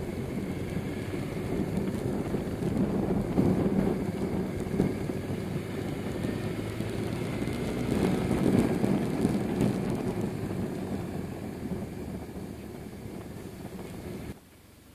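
A BMW R1100RS being ridden, heard from on board: its flat-twin boxer engine running with road and wind noise, swelling twice. The sound cuts off sharply near the end.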